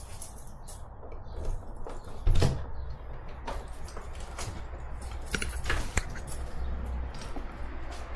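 Front door being handled and opened: a series of clicks and knocks from the knob, lock and door. The loudest knock comes about two and a half seconds in, followed by several sharp clicks.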